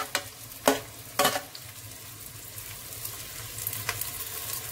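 Sliced onions frying in oil in a clay pot with a steady sizzle. A slotted steel spoon knocks against a ceramic plate three times in the first second and a half as tomato slices are pushed into the pot.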